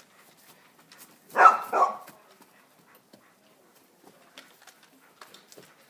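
A short, loud animal call in two quick parts about a second and a half in, with faint scattered clicks and taps around it.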